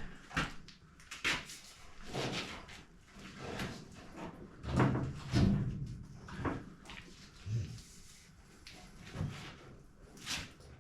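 Irregular metal clunks, knocks and scrapes from a Case 430 skid steer's cab being worked down by hand, with two heavier thuds about five seconds in.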